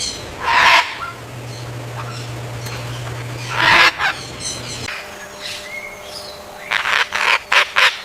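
Blue-and-gold macaws squawking: two loud, harsh single squawks, then a quick run of short squawks near the end, over a steady low hum.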